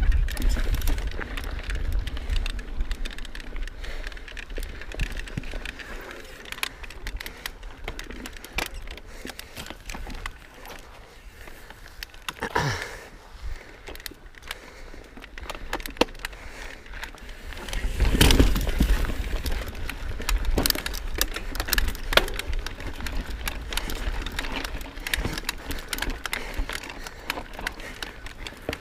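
Knolly Fugitive mountain bike rattling over a rocky trail: tyres crunching on rock and dirt, with irregular clicks and knocks from the chain and frame. Heavier low rumbles come near the start and again about two-thirds of the way through.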